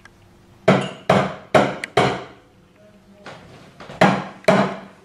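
Stainless steel milk jug of foamed milk tapped down on the counter, in two sets of knocks that ring a little: four quick ones about half a second apart, then after a pause a lighter one and two more. The tapping settles the foam and knocks out the large bubbles.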